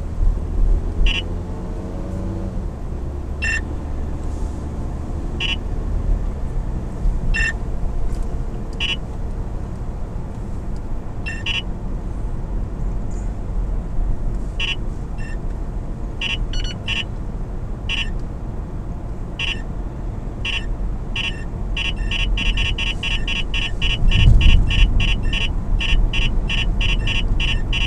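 Radar detector sounding a Ka-band radar alert, short high beeps spaced a second or two apart that turn into rapid continuous beeping about three quarters of the way through, as the radar signal grows stronger. Car cabin road noise runs underneath.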